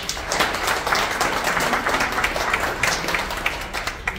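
Crowd of students and visitors clapping in applause, dense and continuous, fading near the end.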